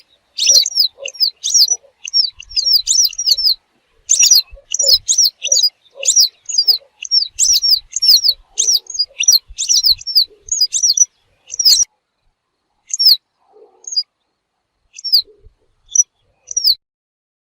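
Western yellow wagtail calls: short, high, down-slurred notes repeated in quick runs, thinning out to single calls a few seconds apart for the last five seconds.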